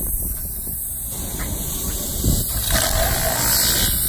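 Refrigeration vacuum pump running steadily, a mechanical hum with hiss, as it evacuates the newly installed refrigerant lines. The sound gets brighter a little under three seconds in.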